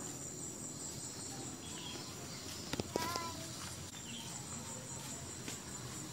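Steady high-pitched insect chirring, like crickets, over quiet outdoor background noise. About three seconds in there are a few sharp clicks and a brief pitched chirp.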